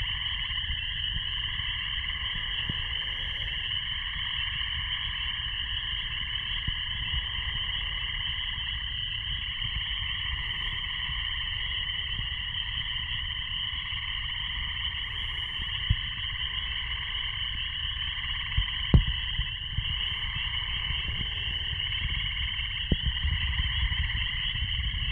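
Dense, continuous chorus of many frogs calling together, a steady shrill trilling mass with no pauses. Under it runs a low rumble, and a few short knocks come in the second half.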